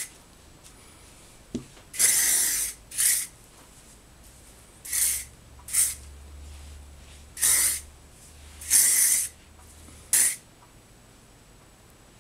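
Hairspray sprayed over styled hair in about eight short hissing bursts, some longer than others, a second or two apart.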